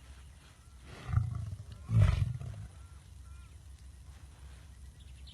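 Lion sneezing twice, two short explosive bursts about a second apart, the second louder.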